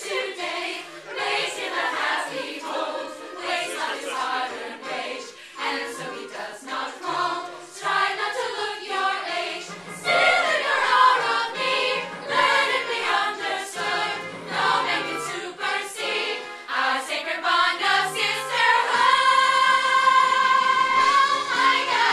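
A group of teenage girls singing together in chorus, ending on one long held note.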